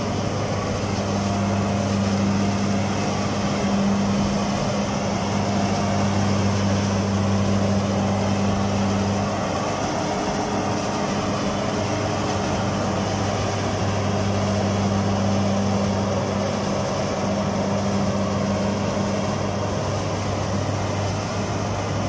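Kubota DC-68G combine harvester's diesel engine running steadily under load as the rubber-tracked machine labours through deep, soft mud, a constant low hum.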